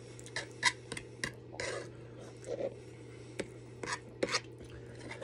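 A metal fork clinking and scraping against a plate about seven times as food is picked up, with a couple of short chewing sounds in between, over a low steady hum.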